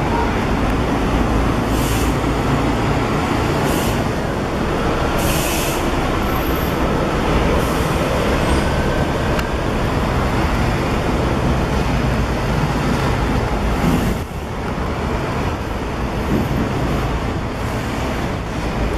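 Double-decker diesel bus's engine running as it pulls away, with several short hisses of air from its brakes in the first half.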